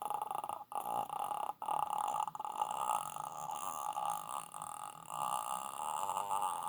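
A person's voice imitating a horror-film ghost's croaking death rattle: a continuous throaty, creaking rattle, broken by two short gaps in the first second and a half.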